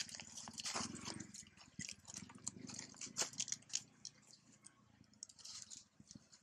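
Long-tailed macaque chewing food, close up, with scattered sharp crackles and clicks. A low pulsing purr-like rumble runs under it for the first couple of seconds.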